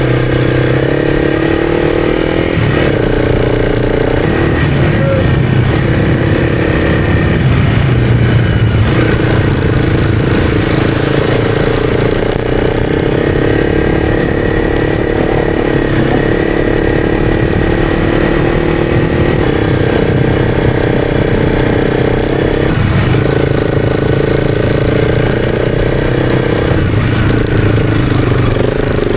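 Honda CRF300's single-cylinder engine running hard under load through deep sand, its pitch stepping up and down several times as the throttle changes.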